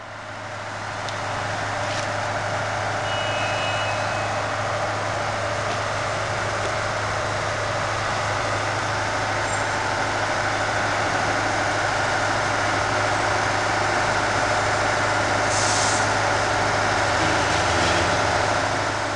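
Heavy engine running steadily, with a constant low hum under it, and a short hiss about three-quarters of the way through.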